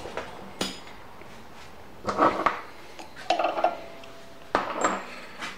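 Metal-on-metal clinks and rattles of a steel chuck key being tried in a lathe chuck, in several short clusters, one ringing briefly. It is the wrong key for this chuck.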